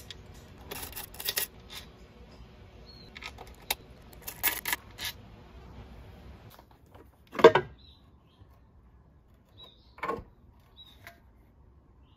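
Small metal clinks and clicks of bolts and a socket ratchet as the CVT cover bolts on a scooter are taken out, in two short clusters. A louder dull knock follows about seven and a half seconds in, and a smaller one a few seconds later.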